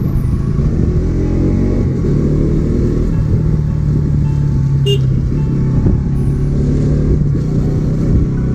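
Motorcycle engine running steadily while riding, a low, even rumble.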